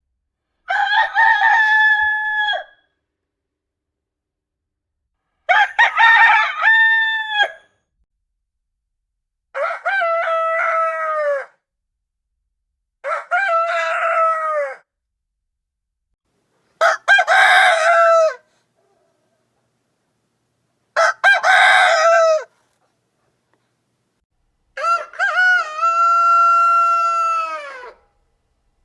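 Rooster crowing cock-a-doodle-doo seven times, each crow a second and a half to three seconds long and ending in a falling drop, with gaps of silence between; the last crow is the longest.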